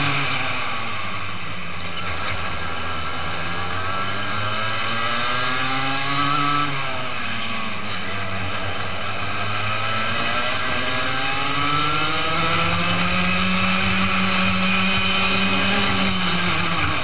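Racing kart's 125 cc two-stroke Rotax Max engine heard onboard at full racing pace. The revs climb along the straights and drop sharply when the driver lifts for a corner, about six to seven seconds in and again near the end.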